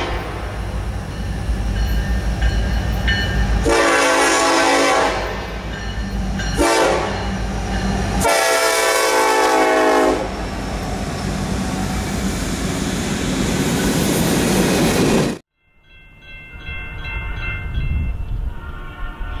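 A diesel locomotive's horn sounding a long blast, a short one and another long one over the steady rumble of the locomotive and its wheels as it approaches and passes. The sound cuts off suddenly, and fainter steady horn-like tones follow.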